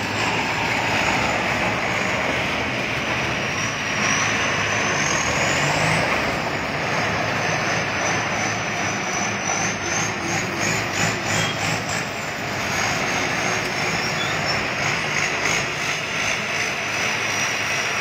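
Tracked rice combine harvester's diesel engine running steadily as the machine drives past, with a thin high whine that rises and falls in pitch.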